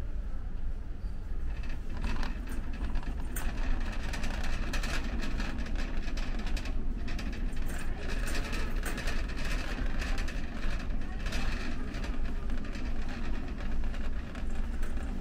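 Warehouse store ambience: a steady low hum with irregular clattering and clicks throughout, and faint background voices.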